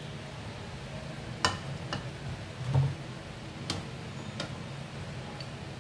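A few light clicks and knocks, about four spread over several seconds with one soft thump among them, as a bowl of chopped vegetables is tipped into a frying pan. A steady low hum sits under them.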